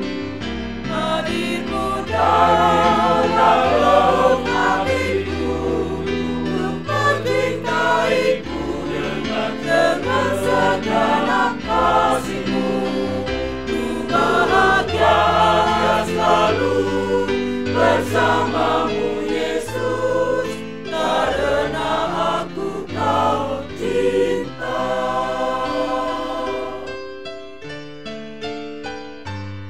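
Mixed choir of men's and women's voices singing an Indonesian hymn in parts over keyboard accompaniment. Near the end the voices drop away and it gets quieter, leaving the piano.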